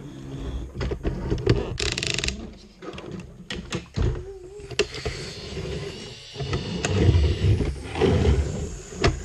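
Plastic toys handled and pushed across a floor close to the microphone: clicks, knocks and rubbing, with heavy thuds near the end.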